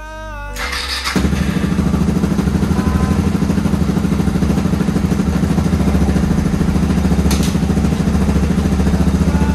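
Suzuki DR650's single-cylinder four-stroke engine starting about a second in and then running steadily with a fast, even pulse, before stopping abruptly near the end.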